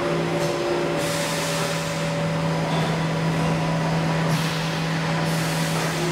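Tormach 1100MX CNC mill spindle at around 8,000 RPM, adaptive-pocketing 6061-T6 aluminium with a quarter-inch end mill under flood coolant. A steady spindle and cutting tone sits under a hiss of coolant spray and flying chips that thickens about a second in as the cut gets going.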